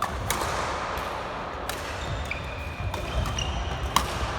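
Badminton rally: sharp cracks of rackets striking the shuttlecock, one near the start, one under two seconds in and one near the end, with brief shoe squeaks on the court floor between them.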